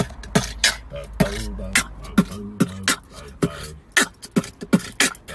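A person beatboxing: sharp mouth-percussion hits about three a second with a hummed bass line between them, over the low rumble of the car.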